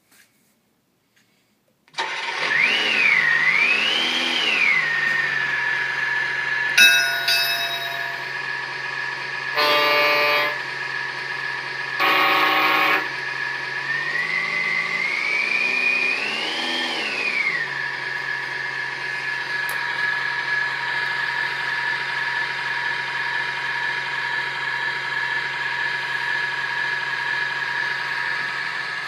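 Harbor Models turbo diesel sound module playing a simulated diesel engine through its small speaker: it starts up suddenly about two seconds in, revs up and down, and settles to a steady idle. Around the middle come two short horn-like blasts, then the engine revs up and back down once more before idling on.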